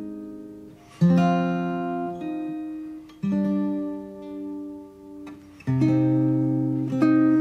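Background acoustic guitar music: slow chords struck a couple of seconds apart, each left to ring out and fade.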